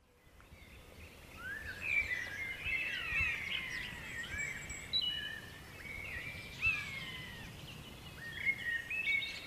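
Woodland birdsong: several birds singing and calling in short whistled phrases and chirps, over a faint low rumble. It fades in during the first second or so.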